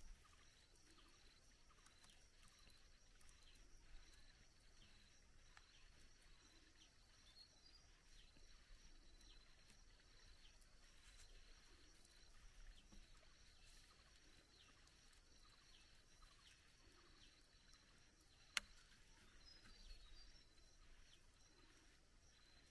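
Faint rural ambience: a steady high-pitched insect drone with a short repeating call about once a second. A single sharp click comes about three-quarters of the way through.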